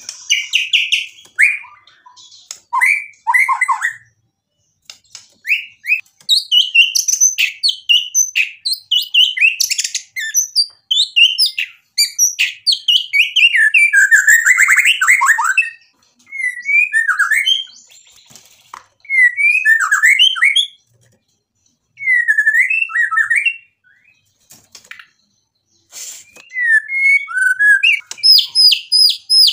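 A caged white-rumped shama singing a loud, varied song of rapid whistled and chattering phrases that changes pitch constantly. The song comes in bursts with short pauses between them, and it ends in a fast, high repeated series.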